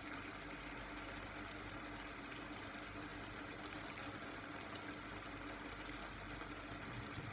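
Faint, steady hiss and low hum from a pan of minced meat and sausages simmering on a gas stove.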